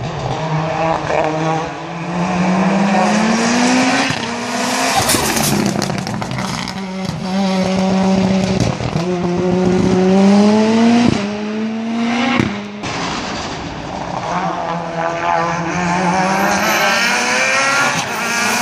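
A hill-climb race car's engine at full throttle, climbing up through the gears. Its pitch rises and drops back at each upshift, about five times, with sharp cracks at two of the shifts. Near the end the engine rises again and grows louder as the car approaches.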